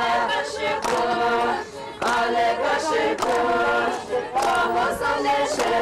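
A group of women folk dancers singing a chant together in unison, in short held phrases with brief breaks between them.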